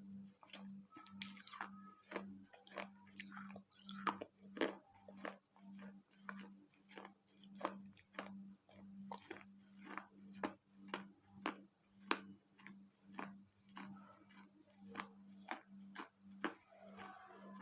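Crunchy chewing of bites of water-soaked fired clay from a small clay pot and saucer: crisp crunches at about two a second.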